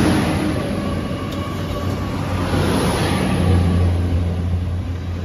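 Great Western Railway Class 802 bi-mode train departing, its underfloor diesel engines running with a steady low drone as the carriages pass close by over a haze of running noise. The drone grows stronger in the second half.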